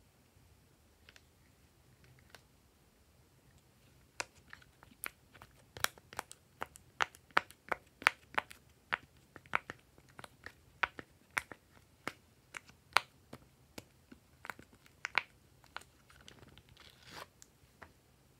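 Bubbles of a silicone pop-it fidget toy pressed one after another: a long run of sharp pops and clicks, a few each second, starting about four seconds in. A short scraping rustle near the end.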